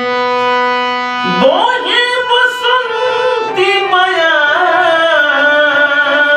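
Bhojpuri Holi song in raag Bhairav: over steady held instrumental tones, a man's voice enters about a second in with a rising glide and sings a wordless, ornamented melodic line.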